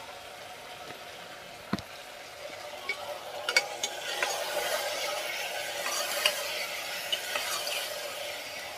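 Vegetables frying and sizzling in a pressure cooker, stirred with a steel ladle. The stirring grows louder about three and a half seconds in, with the ladle scraping and clinking against the pot.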